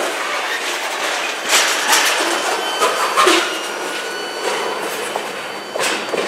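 Covered hopper cars of a CSX freight train rolling past at close range, the wheels clacking with several sharp clanks over the rail joints and a faint wheel squeal. The rumble slowly fades as the last car passes and moves away.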